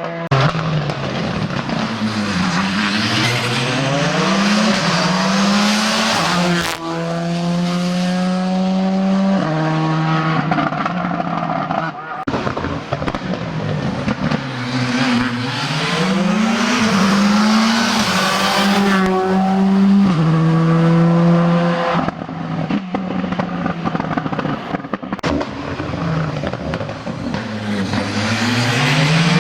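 Rally cars racing past on a special stage, their engines revving up through the gears and dropping on the lift-off and downshifts, again and again. The sound breaks off abruptly several times between passes.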